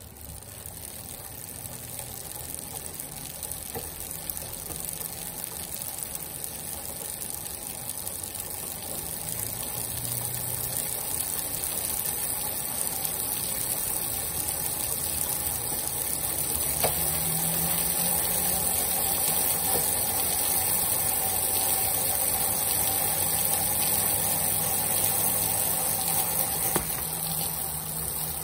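Indoor bicycle trainer running under pedalling, a steady rushing whir that grows louder over the first half as speed builds, then holds. A sound meter beside it reads over 90 dB.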